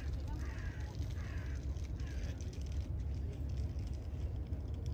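A crow cawing three times in quick succession, about one caw every three-quarters of a second, over a steady low rumble.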